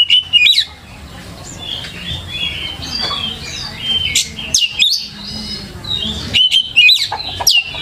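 Oriental magpie-robin (kacer) singing a varied song of clear whistles, quick sweeping notes and chattering phrases, with a quieter stretch about a second in and loud sharp notes in the middle and near the end.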